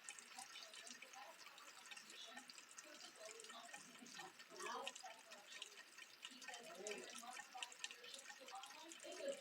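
Faint rain dripping, scattered drops ticking irregularly.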